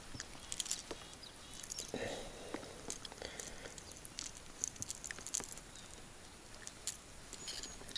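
Faint, scattered light clicks and soft rustles of close-up handling, with a short rustle about two seconds in.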